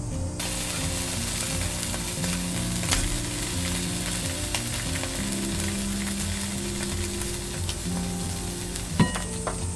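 A chicken leg sizzles as it fries in hot oil in a wok, being lightly browned. The steady sizzle starts suddenly just after the beginning, with one sharp click near the end.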